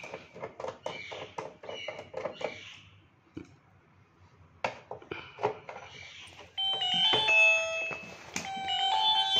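A mobile phone ringtone starts about six and a half seconds in, a melody of sustained electronic notes and the loudest sound here. Before it there are scattered clicks and rustles of handling.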